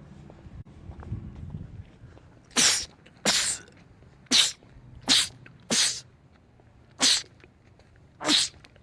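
A man sneezing seven times in quick succession, about one sneeze a second, starting a couple of seconds in; each sneeze is short and sharp.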